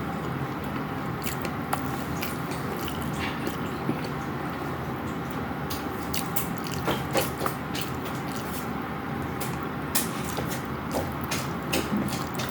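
A person eating close to the microphone: chewing and biting with scattered sharp mouth clicks and smacks, bunched in a few spots, over a steady background noise.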